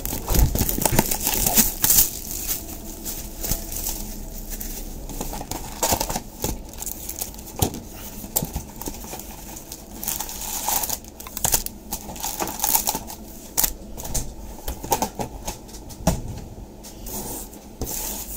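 Plastic trading card pack wrappers being torn open and crumpled by hand, a steady irregular crinkling and tearing.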